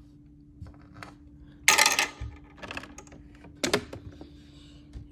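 Small rocks being put into a toy washing machine's plastic drum, clattering twice with a few light clicks in between.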